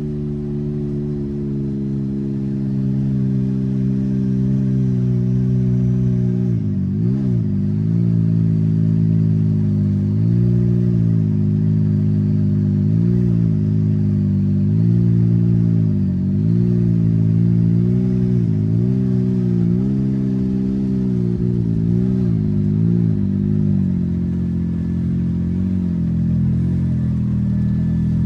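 Can-Am side-by-side engine running at low trail speed, steady at first, then its revs dipping and coming back up again and again from about a quarter of the way in.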